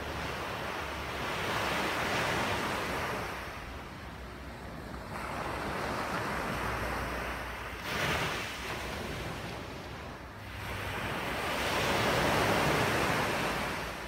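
Ocean surf: waves breaking and washing in, rising and falling in several slow surges, with a sharper break about eight seconds in.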